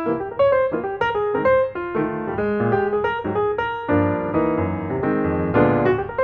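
Background piano music, a steady run of quick, bright notes.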